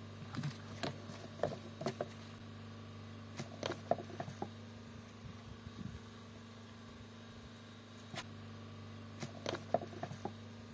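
Scattered light clicks and knocks of things being handled, in small clusters with the loudest about four seconds in and again near the end, over a steady low hum.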